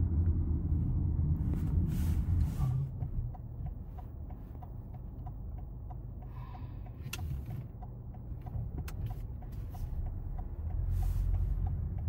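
Car interior road noise from a car driving, a steady low rumble that eases about three seconds in as the car slows and builds again near the end. A faint, regular ticking runs through most of it, about three or four ticks a second.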